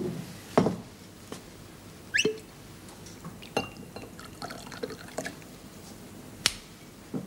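A drink being poured from a glass bottle into a small glass: a string of glass clinks and knocks against the bottle and the wooden desk, with a brief rising pour about two seconds in and one sharp clink near the end.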